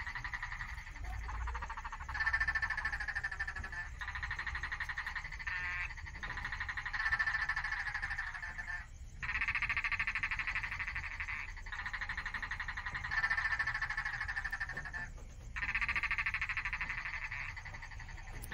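Chorus of calling animals: overlapping rapid pulsed trills that start and stop every second or two, over a low rumble.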